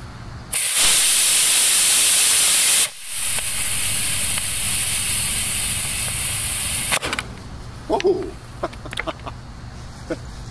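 An Estes C6-5 black-powder model rocket motor firing on a thrust test stand. A loud rushing hiss starts sharply about half a second in and cuts off a little over two seconds later. A quieter hiss follows as the delay charge burns, ending with a sharp crack of the ejection charge about seven seconds in.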